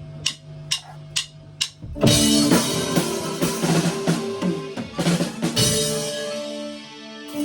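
A band playing live, including keyboard: first a held low note with sharp clicks about twice a second, then about two seconds in the full band comes in loud with drum kit. Near the end it eases off to held chords.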